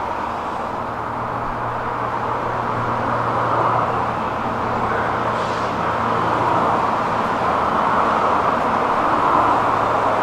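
Stockholm metro train approaching the platform: a steady rumble with a low hum that grows gradually louder.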